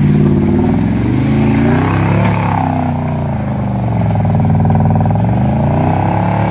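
4x4 SUV engine revving hard under load as the vehicle claws up a steep muddy slope. The pitch climbs about two seconds in, sags, then climbs again as the throttle is worked.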